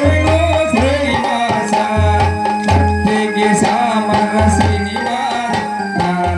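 Folk song for a kolatam stick dance: a voice singing over a repeating low drum beat.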